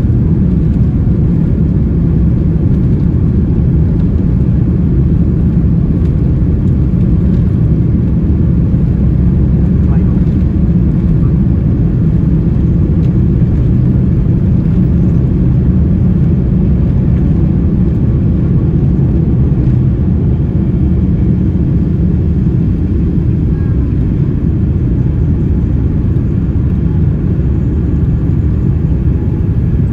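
Boeing 787-9 jet engines at takeoff thrust heard from inside the cabin, a loud, steady low rumble as the airliner rolls down the runway and lifts off.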